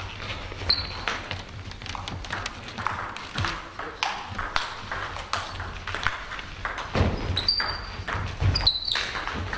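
Table tennis ball clicking off the bats and bouncing on the table in quick, irregular rallies, with a few short high squeaks from shoes on the hall floor.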